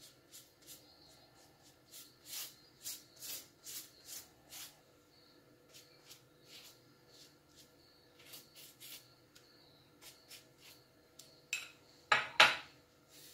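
Silicone pastry brush dabbing and stroking glaze over dough logs on a metal baking tray: a run of short brushing swishes and taps, about two a second. Near the end comes a louder clatter of kitchenware.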